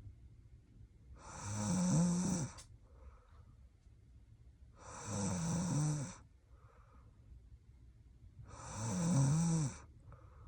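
A sleeping woman snoring: three snores about three and a half seconds apart, each a wavering, rattling low tone with breathy hiss, with faint breaths between them.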